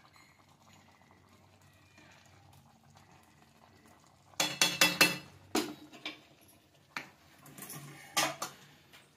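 Metal ladle clinking against a kadhai and a stainless steel plate as chickpea curry is served. The first four seconds are quiet, then comes a quick run of ringing metal clinks, a single clink near seven seconds, and two more near the end.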